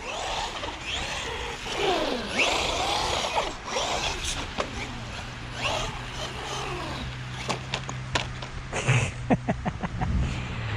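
Bezgar HM124 brushless RC car's electric motor whining up and down in pitch as the throttle is worked, with a cluster of clicks and knocks about nine seconds in.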